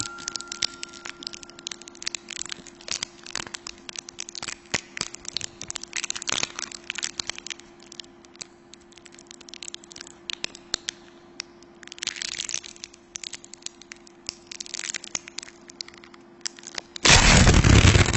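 Irregular crackling with sharp cracks over a faint steady hum, part of a scary binaural sound effect. About seventeen seconds in, a sudden loud burst of noise breaks in and keeps going.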